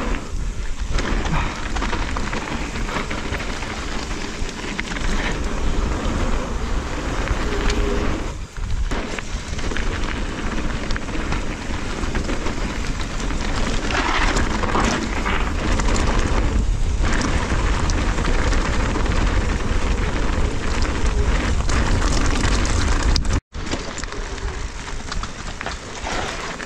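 Mountain bike descending a rough trail, heard from an action camera on the rider: constant wind buffeting on the microphone, with the tyres rolling and crunching over loose slate and the bike rattling. The sound cuts out for an instant about 23 seconds in.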